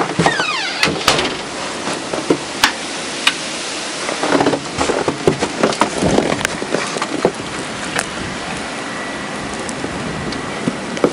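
Snowstorm wind blowing steadily, with scattered sharp clicks and knocks throughout.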